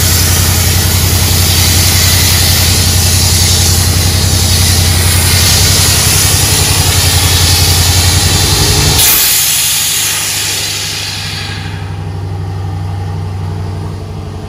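Abrasive sandblasting from a pressure blast pot's nozzle: a loud, continuous hiss over a steady low mechanical hum. About nine seconds in the low hum drops away, and the blasting hiss fades out over the following few seconds.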